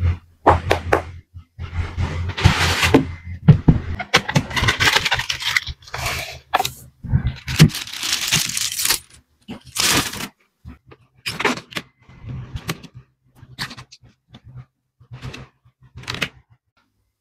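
Clear plastic wrapping crinkling and tearing as it is handled and pulled off, with clicks, rustles and scrapes of packaging being handled. The crinkling is densest and loudest in the first half, then thins to scattered clicks and scrapes.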